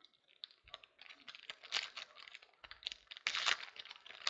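Trading cards being handled: irregular rustling, crinkling and small clicks of cards, plastic sleeves and pack wrapper, growing louder about a second in and loudest near the end.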